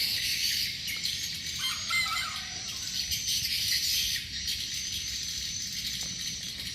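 Outdoor ambience: insects trilling steadily at a high pitch, with a bird calling briefly about two seconds in.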